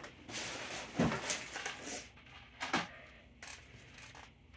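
Handling noise: rustling with two knocks, about a second in and near the middle, then a few faint clicks as an object is moved aside.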